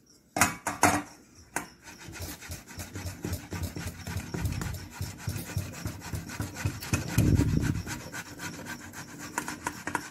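Boiled, peeled potatoes being grated on a flat metal hand grater over a steel bowl: a steady run of quick rasping strokes. A couple of sharp knocks come just before the grating starts, and there is a louder dull bumping a little past the middle.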